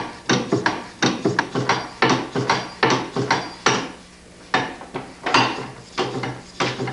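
LPG-heated Stirling engine's mechanism clacking in a quick run of sharp mechanical knocks, about three a second, with a brief pause near the middle and a steady low hum underneath.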